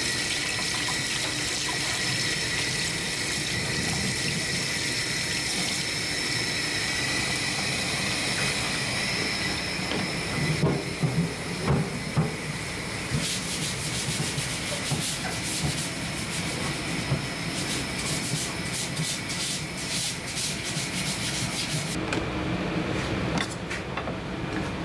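Tap water running into a stainless steel sink as a fish is rinsed and rubbed by hand. About halfway through come a few knocks, then a long run of quick scraping strokes.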